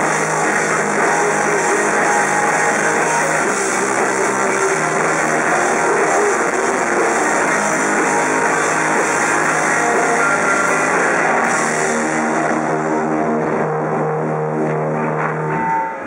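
Live rock band playing loudly: electric guitar, bass guitar and drums in a dense, sustained wall of sound with long held chords. The music stops near the end.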